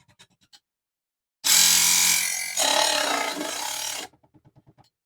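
Mini table saw running and cutting a small aluminum channel for about two and a half seconds, starting suddenly and cutting off abruptly. A quick run of fading ticks follows.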